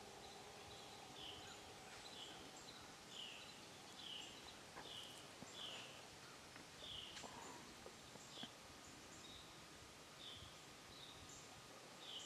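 Faint, repeated short high chirps from a small woodland animal, one or two a second, over quiet woodland background.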